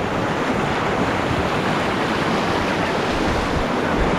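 Rushing river whitewater, a steady wash of water around a canoe running a rapid, with wind buffeting the microphone.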